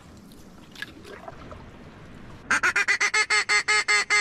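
A rapid, evenly paced run of loud duck quacks, about seven a second, starting about two and a half seconds in after a quiet stretch.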